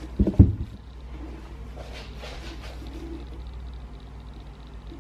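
A brief cluster of low thumps just after the start, then faint rustling.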